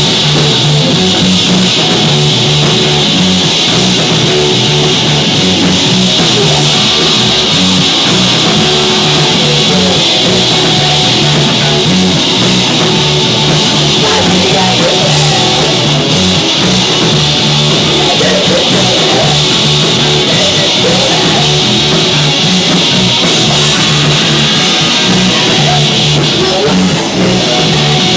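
Live rock band playing loudly and steadily: distorted electric guitar, bass and drum kit with crashing cymbals.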